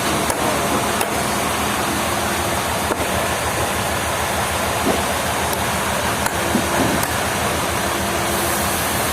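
Sawmill machinery running steadily: a low engine hum under a dense, even noise, with a few sharp knocks.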